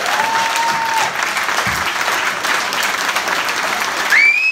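Audience applauding after the piece, with a drawn-out cheer in the first second and a short rising whistle near the end.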